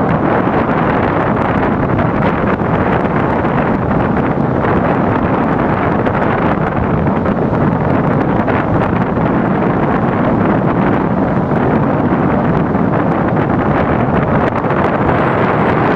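Strong wind blowing hard across the microphone, a steady loud rushing noise with no lulls.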